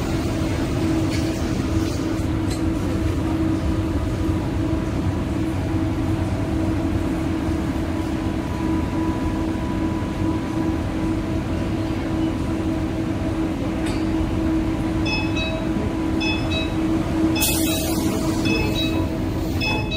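Adtranz-Siemens A1 metro car standing at a platform with its doors open, giving off a steady hum with a held low tone. From about three-quarters of the way in, a series of short, high door-warning beeps sounds. A brief loud hiss comes as the doors start to close.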